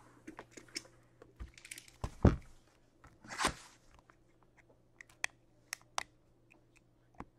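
Cardboard boxes of hockey cards being handled and set down on a table: scattered taps and clicks, with two louder knocks about two and three and a half seconds in. A few sharp clicks follow near the end as a box cutter is put to the shrink-wrapped box.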